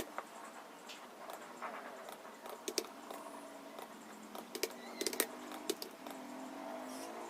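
Computer keyboard keys clicking in irregular, sparse keystrokes, a few sharp clicks a second with short pauses between. A faint pitched sound sits in the background in the second half.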